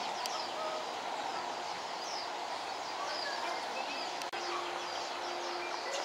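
Many small birds chirping, with short high chirps repeating over and over above a steady background hiss. The sound drops out for an instant a little past four seconds.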